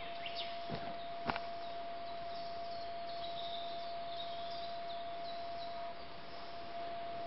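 Two footsteps on the rutted forest soil in the first second and a half, then small birds chirping faintly a few seconds in. A steady high tone runs under everything.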